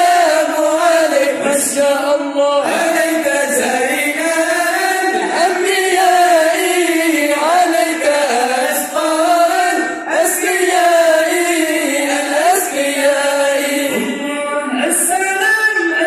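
Group of men singing Acehnese dike, a devotional chant sung without instruments into hand microphones, in a sliding, ornamented melody that runs on without a break.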